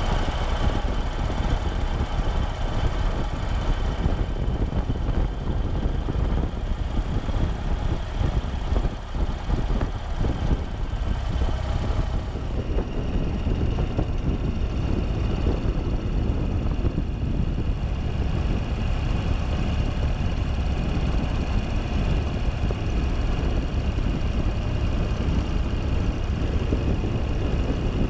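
Ural sidecar motorcycle's boxer-twin engine running as the rig rides along the road, under a steady, heavy wind rumble on the microphone.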